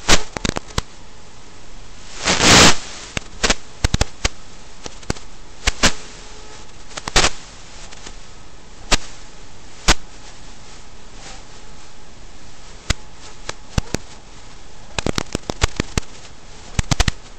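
Steady hiss broken by irregular sharp clicks and pops, with a half-second crackling burst about two seconds in, on the audio of an FPV RC car's onboard camera feed.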